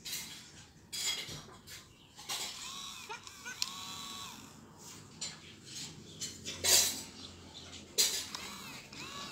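WowWee battery-operated plush husky toy playing its electronic dog sounds: a run of short noisy yaps and a few brief whining tones, the loudest yap about two-thirds of the way in. Fur rustles as the toy is picked up near the end.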